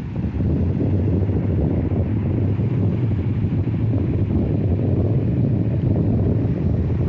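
Sea surf: a steady, deep rumble of waves with no distinct breaks, a little louder from about half a second in.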